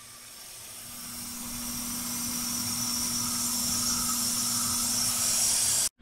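Kitchen faucet running water into a plastic pet-fountain tank: a steady hissing splash that grows louder over the first few seconds, with a low steady hum underneath. It cuts off suddenly near the end.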